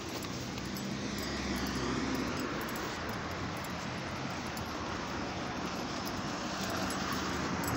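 A motor vehicle passing: a steady rushing hum that swells in the first couple of seconds, with small clicks throughout.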